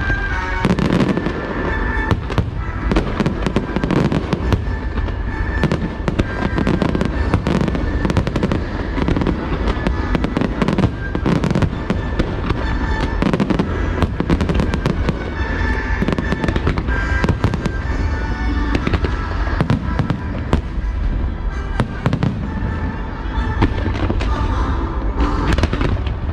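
Aerial fireworks in a continuous, rapid barrage of bangs and crackles, with the show's music playing underneath.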